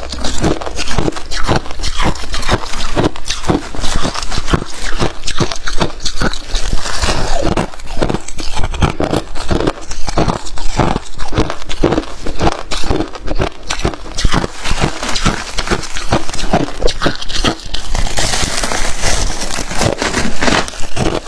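Crunchy freezer frost being bitten and chewed close to the microphone: a dense run of loud, irregular crunches and crackles.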